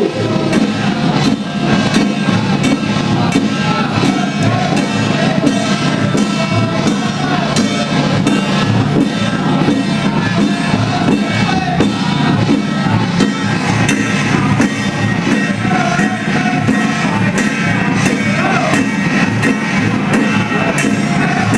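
Taiwanese temple procession ritual music: voices chanting or singing over drums and struck percussion, with a dense run of strikes throughout.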